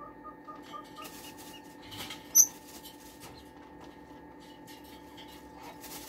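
Baby chicks in a brooder: a few soft peeps near the start and one short, sharp, high chirp a little after two seconds in, with faint scattered pecking and scratching clicks, over a steady hum.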